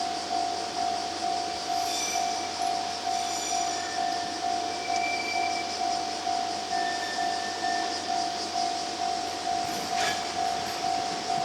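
Japanese level-crossing warning bell ringing at about two strokes a second, with the running noise of a multiple tie tamper (a rail track-maintenance machine) crossing underneath. A single sharp clank comes about ten seconds in.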